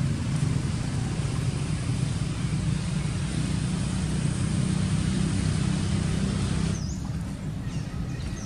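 Steady, low rumbling background noise with a hiss above it; the hiss thins out about seven seconds in.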